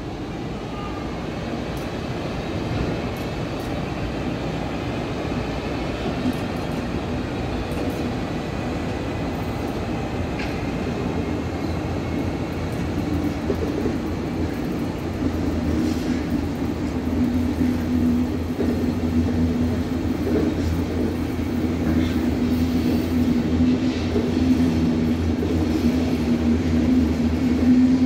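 Electric passenger train rolling slowly by while shunting: a steady rumble of wheels on rails with scattered clicks, growing gradually louder. A low steady hum joins about halfway through and strengthens.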